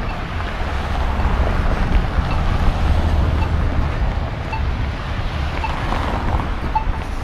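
Wind buffeting the microphone of a camera carried at running pace: a steady low rumble over a hiss of street traffic. A faint high tick comes about once a second.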